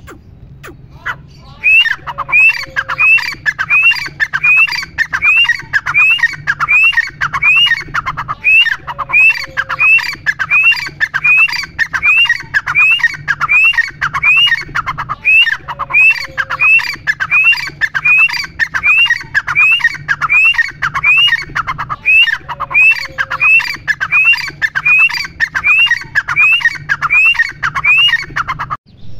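Grey francolin calling: a loud, fast series of short rising notes, about one and a half a second, starting about two seconds in and kept up with a few brief pauses.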